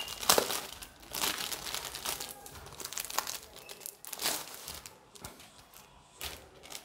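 A comic's plastic poly bag being torn open and crinkled by hand: a string of irregular crackles and rustles.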